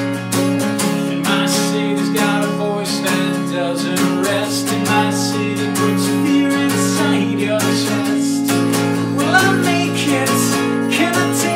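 Steel-string acoustic guitar strummed in a steady rhythm of full chords, with a man's voice singing over it near the end.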